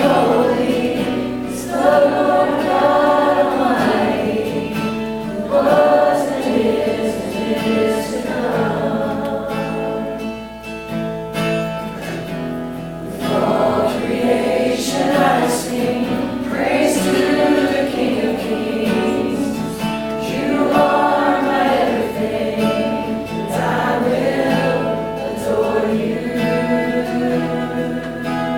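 Church worship singing: a group of voices singing a slow worship song in long held phrases, with guitar accompaniment.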